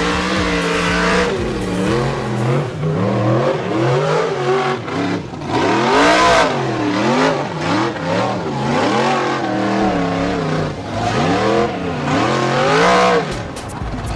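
Tube-chassis rock racing buggy's engine revving hard in repeated rises and falls, about once a second, as it claws up a steep rocky ledge.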